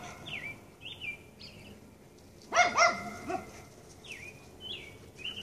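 A quick burst of three or four sharp barks about two and a half seconds in, over repeated short falling whistled bird calls.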